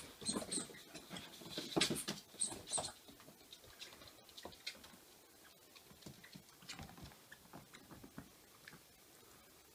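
A whippet puppy's claws clicking and pattering on a wooden floor as it plays with a plush toy. The taps are busiest and loudest in the first three seconds, then turn to scattered quieter taps.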